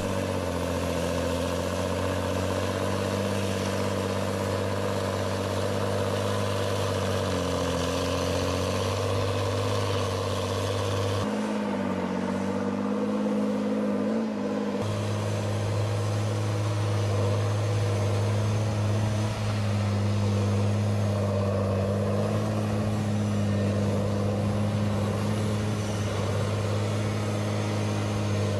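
Tigercat log skidder's diesel engine running steadily with a low drone, its pitch shifting twice as the machine works.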